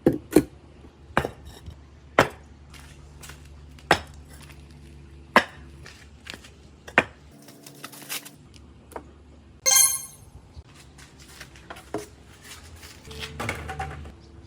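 Marbles rolling along a handmade wooden marble run, with irregular sharp clacks as they strike the track over a steady low rolling rumble. A brief bright ringing comes about ten seconds in.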